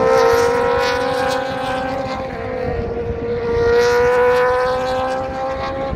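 Two race cars passing on the track one after the other with a steady engine note, the first just as the clip begins and the second about four seconds in.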